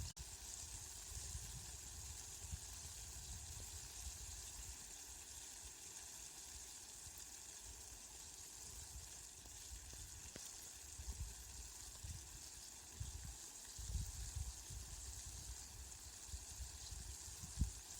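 Steady rain falling, an even hiss, with occasional low rumbles underneath.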